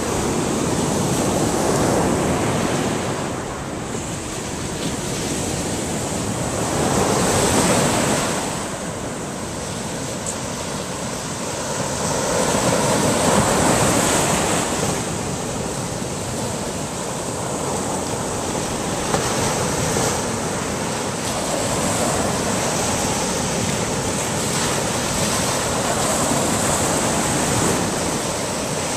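Surf breaking and washing up the beach: a continuous rush of water that swells and eases every few seconds.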